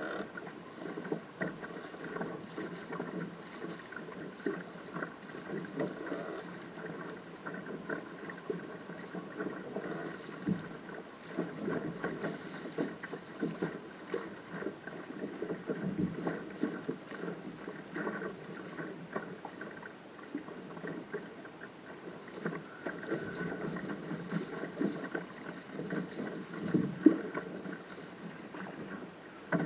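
Water rushing and slapping against the hull of a small sailing dinghy under way through chop, with frequent irregular splashes and one sharper slap near the end.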